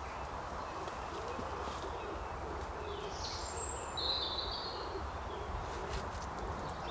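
Birds calling in woodland: faint low calls through the middle and two short high calls about three and four seconds in, over a steady low rumble.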